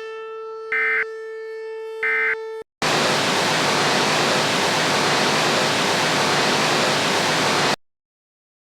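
Emergency Alert System end-of-message data bursts: two short electronic screeches about a second and a half apart, over a steady droning tone. The tone stops, and a loud, even static hiss follows for about five seconds before cutting off suddenly.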